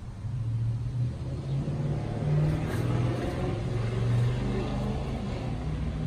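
A motor engine running steadily nearby, its low hum rising and falling slightly in pitch.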